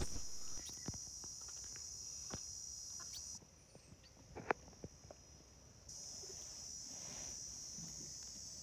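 A steady, high-pitched insect chorus drones throughout, cutting out for a couple of seconds midway and then resuming, with faint rustles and soft clicks over it.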